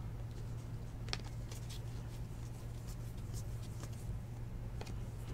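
Faint clicks and slides of trading cards being flipped through a stack by hand, over a steady low hum.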